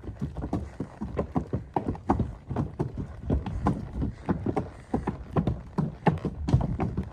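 Horse's hooves walking along a trail, a steady rhythm of hoofbeats.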